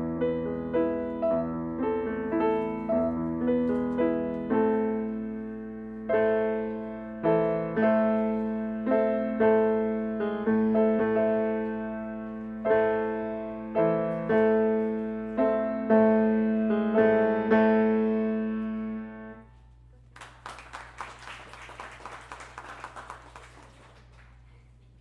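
A piano played at a slow, even pace, single melody notes over lower held notes, the closing phrase of a simple beginner's piece; the last chord is cut short a little before the end. After that come a few seconds of quieter scattered clicking noise.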